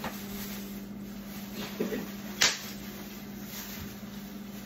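Groceries being handled at a kitchen counter: a single sharp knock about halfway through, over a steady low hum.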